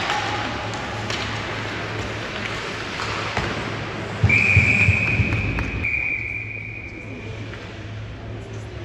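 Referee's whistle blown in one long, steady blast of about three seconds, with a low thud as it starts, over arena noise and scattered knocks.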